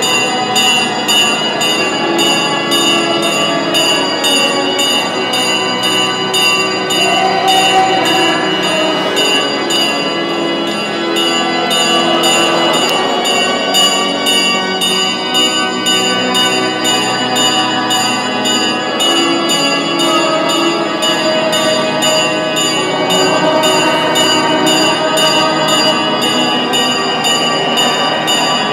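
Church bells ringing continuously in a festive peal, quick regular strokes with the tones ringing on over each other.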